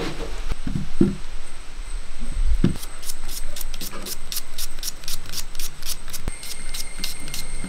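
Hands rubbing peeled red onions in water in a clay bowl, with sloshing and knocks. About three seconds in comes a run of crisp knife cuts through an onion held in the hand, about four cuts a second.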